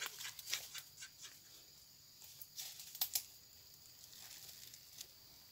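Quiet, scattered rustling and scraping of dry soil and leaf litter being handled, with a few short, sharper crackles in the first second and again around three seconds in.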